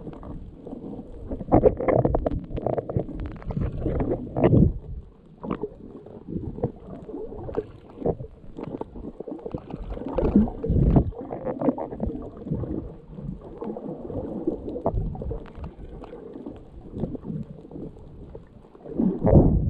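Muffled underwater water noise picked up by a camera held beneath the surface: irregular low rumbles, swishes and gurgles of moving water, with louder surges about two, four and a half, ten and nineteen seconds in.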